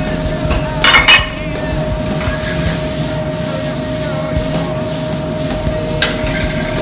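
A loud double clatter about a second in as cherry tomatoes go from a plate into a hot skillet, then the skillet is worked over a gas burner, with another small knock near the end. Under it runs the steady hum and rumble of a kitchen fan.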